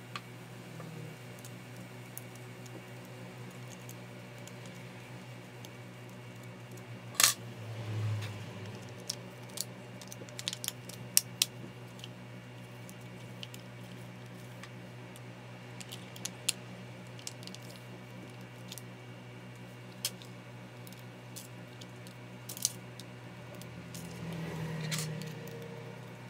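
Scattered clicks and taps of the plastic housing and small metal parts of a Makita M693D impact driver being handled and fitted together by hand, the sharpest clicks about seven and eleven seconds in, with a brief scraping near the end as a hand screwdriver turns the hammer-case screws. A steady low hum runs underneath.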